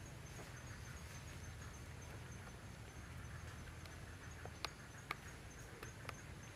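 Faint ambience: an insect's steady, high-pitched pulsing trill over a low background rumble. A few sharp clicks come in the second half.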